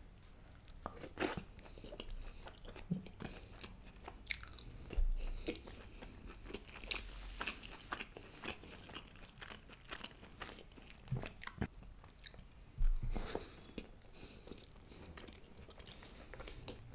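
Close-miked chewing and biting of mutton curry with naan: irregular wet mouth clicks and crunching, with a few louder thumps about a second in, about five seconds in and about thirteen seconds in.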